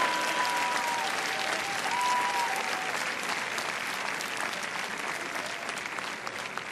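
Large crowd applauding, with a few long held tones rising out of it over the first few seconds; the applause slowly dies down.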